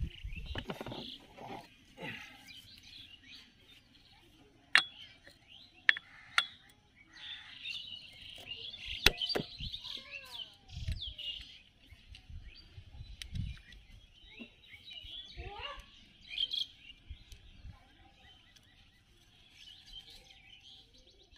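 A few sharp metallic clicks and knocks of tools and parts being handled while a motorcycle engine is assembled, the loudest about five, six and nine seconds in, over birds chirping in the background.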